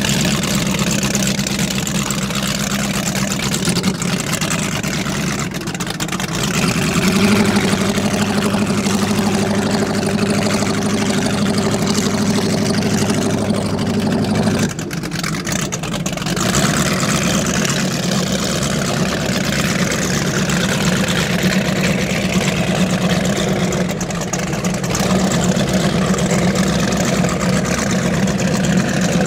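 Inboard engines of an Aeromarine performance powerboat running at low speed, steady and deep. A little way in they grow louder; about halfway through the sound drops suddenly, then carries on steadily.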